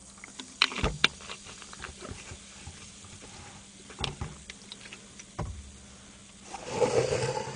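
Cola fizzing in an ice-filled tumbler, with scattered clicks and knocks as a plastic soda bottle is handled and capped. Near the end comes a louder rustle as a cardboard box is handled.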